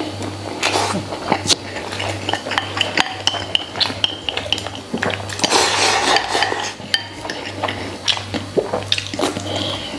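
Wooden chopsticks clicking and scraping against a ceramic rice bowl as rice is shovelled into the mouth, with close-up eating noises. A denser, noisier stretch comes about halfway through.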